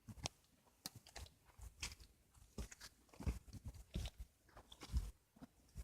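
Footsteps crunching on dry ground at a walking pace, each step a soft thud with a crackle.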